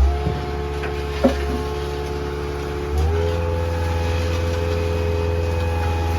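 Heavy equipment engine running steadily, its speed stepping up about three seconds in, with a sharp knock about a second in.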